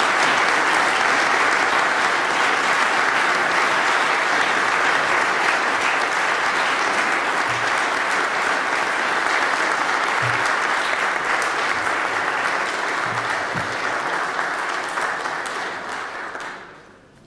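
Applause from the members of a debating chamber, steady and sustained, fading away and stopping near the end.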